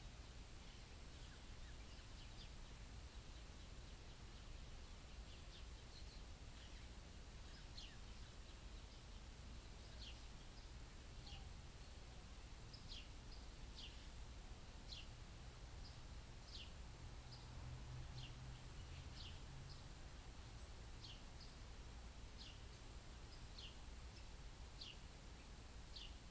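Faint outdoor ambience with short, high bird chirps, each sliding down in pitch, coming irregularly about once a second and more often in the second half, over a low steady rumble.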